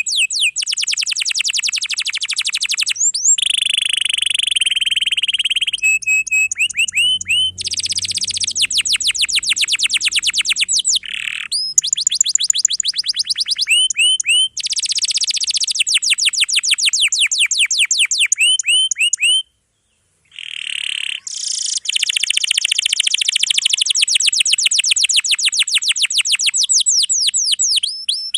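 Domestic canary singing fast, dense rolling trills of rapidly repeated notes, switching from one roll pattern to the next every few seconds, with a break of under a second about two-thirds of the way through.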